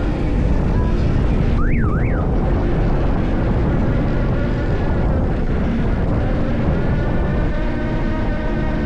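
Steady low drone of a crab boat's engine and hydraulic trap hauler while the trap line is being hauled up over the davit block. A brief up-and-down squeal comes about two seconds in, and a whine of several tones rises in near the end.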